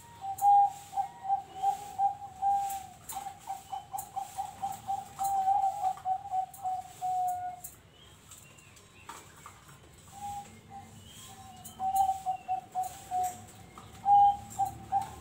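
Zebra doves (perkutut) cooing: runs of short, evenly spaced coos at one pitch, with a break of about two seconds just past the middle before the cooing starts again.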